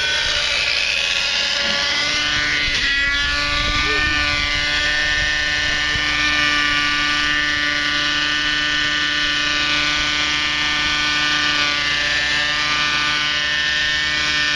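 Thunder Tiger 30 nitro RC helicopter's two-stroke glow engine and rotor running at a steady high pitch. The pitch bends briefly about three seconds in, then holds steady while the helicopter hovers low.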